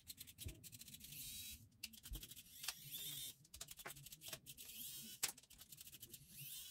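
Precision screwdriver turning small screws out of a plastic soldering-iron housing: faint, irregular clicks and scratchy scraping.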